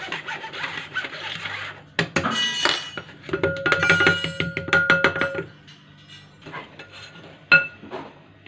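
A spoon scrapes and taps a dry cake mix of flour, cocoa powder and baking powder through a plastic sieve into a glass bowl. Partway through come a run of sharp clinks with a ringing tone, as the sieve knocks against the glass. The last few seconds are quieter, with light taps.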